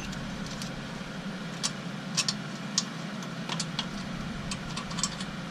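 Light, irregular metallic clicks and taps of hand tools working on the rear wheel hub while a washer is being worked out, over a steady low background hum.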